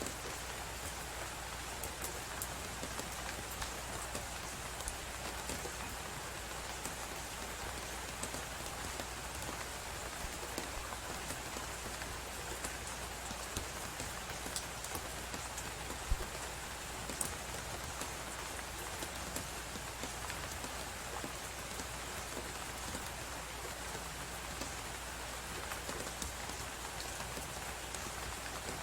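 Crackling wood fire, with frequent small pops and one louder pop about 16 seconds in, over a steady rushing hiss of blizzard wind.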